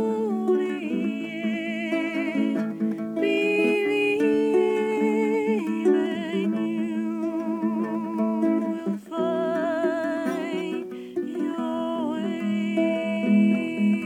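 A woman's voice singing long held notes with vibrato over a small acoustic guitar.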